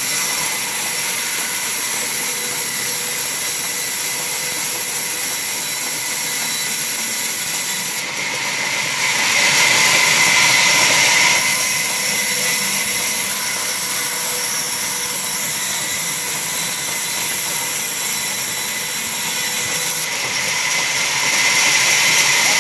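Large sawmill band saw running and ripping a timber slab lengthwise: a steady high whine and hiss that grows louder for a couple of seconds about midway and again near the end.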